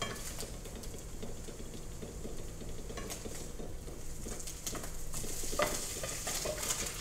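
Eggs sizzling and crackling in a frying pan, with a spatula scraping and knocking against the pan as they are lifted out; a few sharper clinks come about three and five and a half seconds in.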